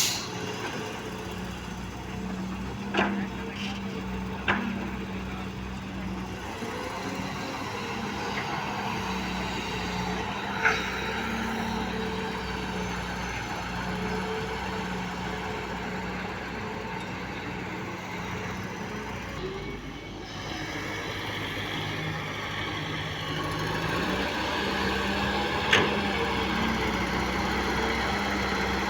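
Heavy diesel machinery engine running steadily, its low hum wavering slightly, with a few short sharp knocks: one near the start, two about three and four and a half seconds in, and one near the end.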